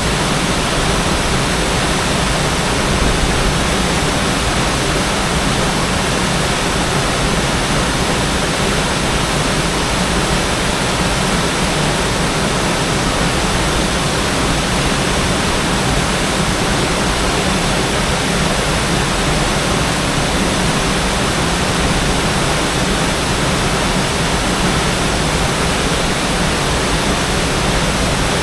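A waterfall rushing, a loud, steady wash of falling water that does not change.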